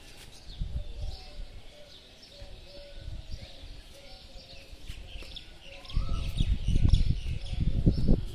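Several birds chirping, with many short, high calls overlapping throughout and a few lower held notes among them. From about six seconds in, loud low rumbling noise comes in over the birdsong.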